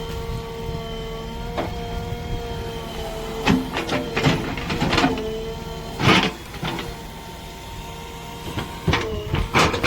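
Heavy diesel machinery running steadily. From about three and a half seconds in there is a series of sharp clanks and knocks, the loudest about six seconds in and another cluster near the end.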